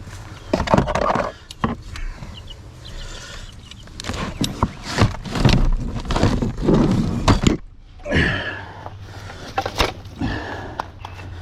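Irregular knocks, clanks and scuffs of recovery gear being handled, with footsteps, over wind and outdoor noise; the sound cuts out abruptly a little past halfway and picks up again.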